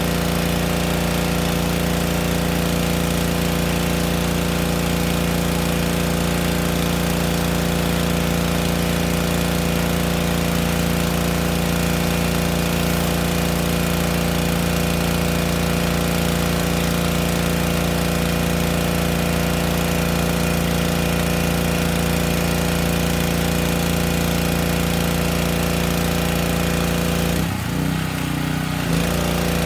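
Yamaha PowerStroke 3100 PSI pressure washer's gas engine running steadily at close range while the spray wand is in use. Near the end the engine note wavers and dips for about a second as its load changes.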